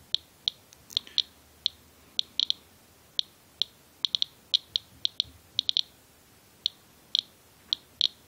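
Inspector USB Geiger counter chirping at each detected count: short high beeps at random, uneven intervals, about three a second. The count rate is well above the normal background, and the owner takes it for something radioactive on his winter coat's hood.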